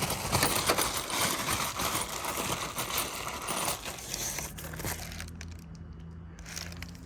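Rustling and clinking of small parts and tools being rummaged through, busiest for the first four seconds and then dying down.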